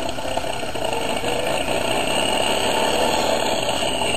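An engine running steadily, a continuous rattling drone with a steady high whine over it.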